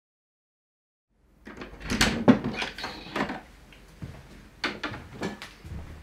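Wooden door being handled: a run of sharp knocks and rattles starting about a second in, loudest around two seconds in, then a few sparser knocks.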